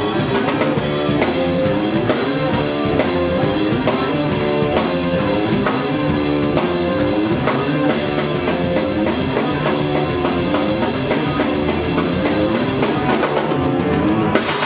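Live rock band playing: drum kit keeping a steady beat under electric guitars and bass guitar.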